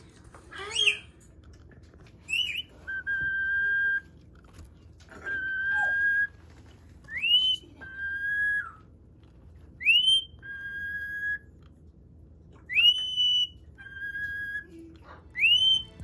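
A two-part whistle repeated about five times: a quick upward-sliding note, then a steady lower note held for about a second.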